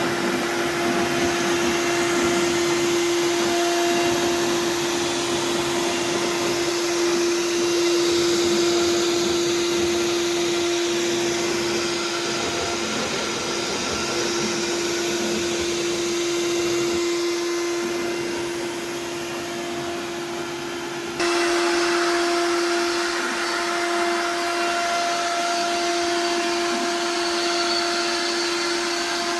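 Inventables X-Carve CNC router spindle running at a steady high-pitched hum while carving wood, with a hissing cutting noise that eases off briefly and then jumps back suddenly about two-thirds of the way through.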